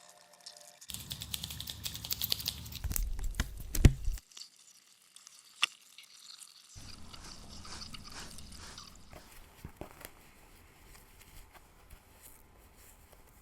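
Fingers scratching a scalp and pulling through hair, a dense crackly scratching with sharp crackles, loudest about four seconds in. After a short pause it comes back softer and tapers off.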